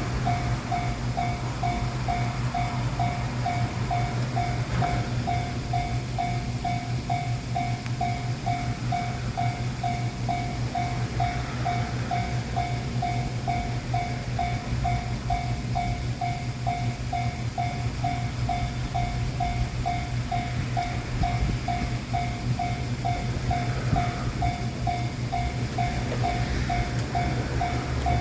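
Japanese level-crossing warning bell ringing steadily, about two strikes a second, over the steady low drone of a diesel railcar.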